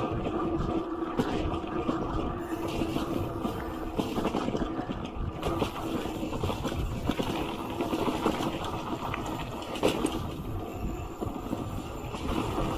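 Bicycle rolling over a rough, rutted dirt road: a continuous low rumble with scattered rattles and knocks. A steady hum fades out over the first couple of seconds.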